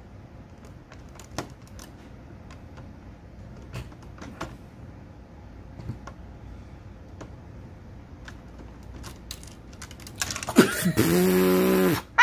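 Small plastic building-brick pieces clicking and tapping now and then as they are handled and fitted. Near the end comes a much louder sound with a steady pitch, lasting about a second and a half.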